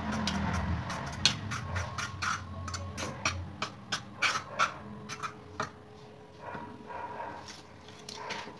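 Irregular light clicks and taps of a pastry brush against a small cup and a steel bowl as butter is dabbed on, over a low hum that fades after about three seconds.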